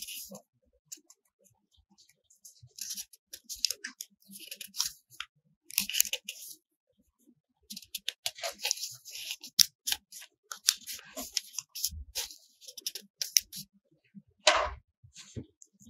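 Pen scratching on paper in short, irregular strokes of writing, with one knock near the end.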